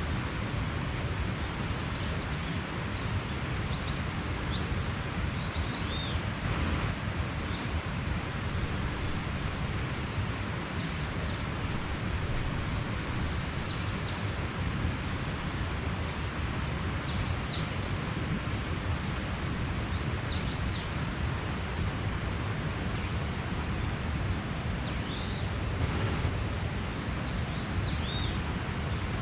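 Mountain stream running steadily, with a bird's short, high chirps repeating every second or two over the water.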